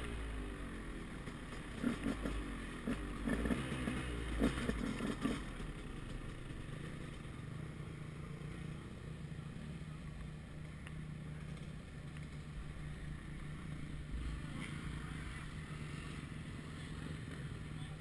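KTM 200 XC-W two-stroke dirt bike engine running at low throttle as the bike rolls slowly. There are a few brief louder moments in the first five seconds, then it settles to a steady idle.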